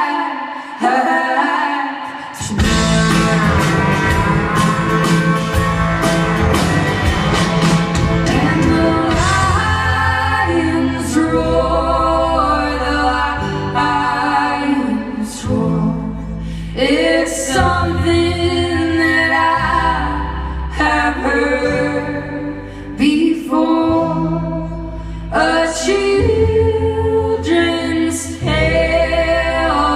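Live folk band playing: sung vocal harmonies over strummed guitar and a bass line that shifts every second or two.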